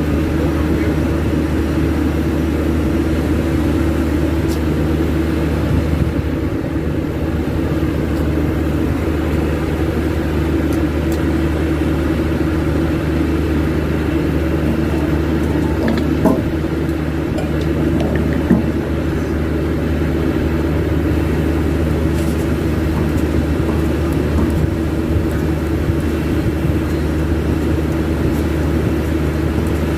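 Steady low droning hum of running machinery at the parked aircraft, several steady tones together, with two faint clicks past the middle.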